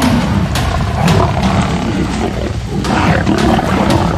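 Lions growling loudly as Cape buffalo charge them, with several sharp thuds from the scuffle.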